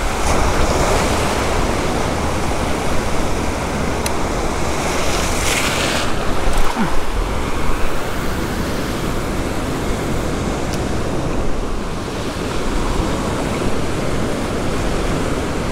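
Ocean surf breaking and washing through shallow whitewater: a steady, loud rushing wash that swells somewhat louder about six to eight seconds in.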